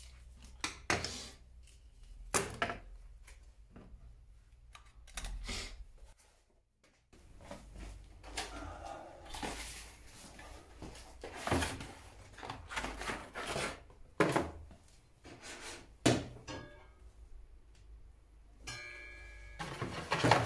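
Workshop handling noises: scattered knocks and clatter of tools and workpieces being picked up and set down, with a short metallic ring near the end as a stainless-steel square is laid on the table saw's steel table. The saw is not running.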